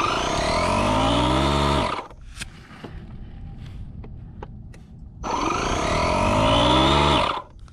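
DeWalt 20V cordless air compressor running in two short bursts of about two seconds each, its motor winding down in pitch as it stops each time, a few seconds apart. It is pumping up a lawn tractor tire that fills slowly, which the owner puts down to tire sealant probably clogging the valve.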